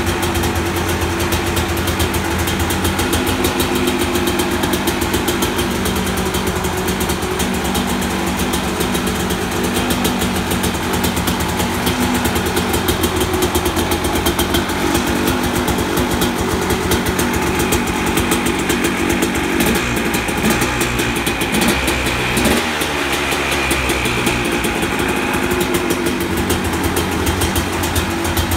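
2003 KTM 250 SX single-cylinder two-stroke engine idling steadily, with fast, even pulsing. The engine note shifts briefly about two-thirds of the way through, then settles back to idle.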